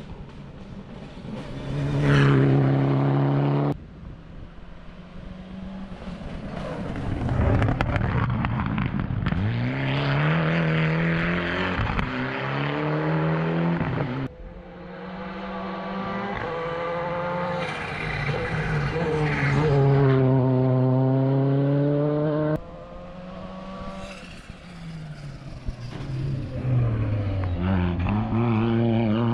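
Rally car engines accelerating and revving hard on a gravel stage, the pitch climbing and dropping again and again through gear changes as cars pass. The sound breaks off sharply a few times where one pass cuts to the next.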